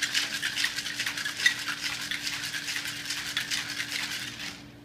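Ice rattling inside a cocktail shaker shaken hard to chill and mix a martini: a fast, even rattle that stops just before the end.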